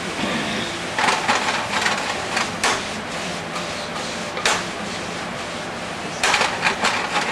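Chopped onions, bell peppers and mushrooms sizzling steadily in hot olive oil in a pot, with a few short bursts of clattering and scraping: one about a second in, a couple in the middle and a cluster near the end.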